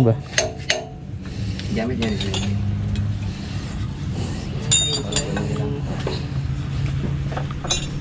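Steel wrenches clinking and knocking against the parts of a diesel engine's cylinder head and valve train during disassembly, a few sharp metallic clinks at irregular times over a steady low hum.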